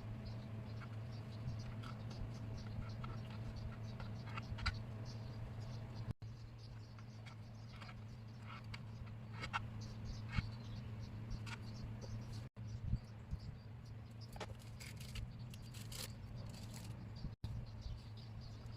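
Light kitchen handling sounds: scattered small taps, clicks and scrapes over a steady low electrical hum. The sound drops out briefly three times.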